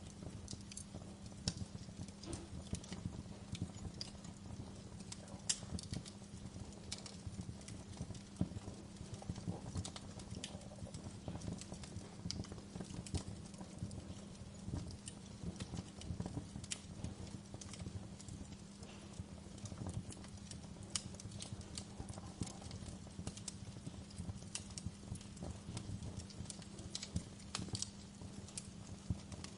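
Wood fire burning in a fireplace, crackling with many irregular sharp pops and snaps over a steady low rumble.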